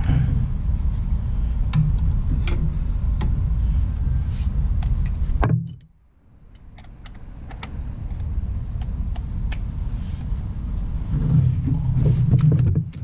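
Scattered metallic clinks of hand tools on the mower's metal parts, over a steady low rumble. The rumble cuts out abruptly about halfway through, then swells back over a couple of seconds.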